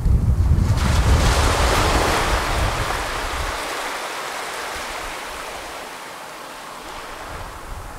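Small sea waves breaking and washing up a sandy beach: the hiss of surf swells about a second in, then slowly fades as the water runs up the sand. A low rumble underlies the first few seconds and dies away.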